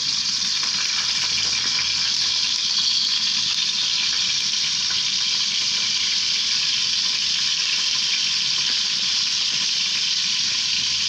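Cod heads sizzling steadily as they fry in a little hot peanut oil in a pot, an even crackling hiss.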